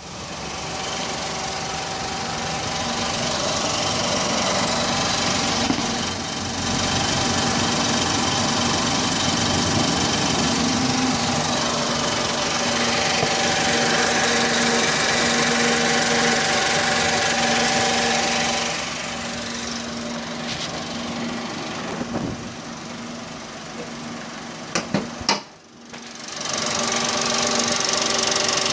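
Suzuki Wagon R Stingray MH44S three-cylinder engine running, with an intermittent chirping noise ('chun chun, chu-chu-chu-chu') coming from its ISG starter-generator low in the engine bay. The noise comes from the ISG unit itself, not the belt or tensioner. Near the end the sound drops away sharply for about a second, with a few clicks.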